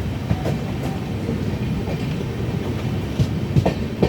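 Express train running along the rails, a steady low rumble with a few sharp wheel clacks near the end.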